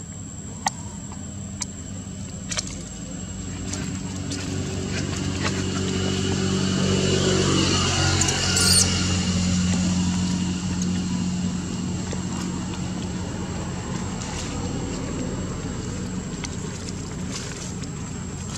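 A motor vehicle passing by: a low engine hum swells over several seconds, peaks about halfway through as its pitch drops, then slowly fades. A few sharp clicks sound in the first three seconds.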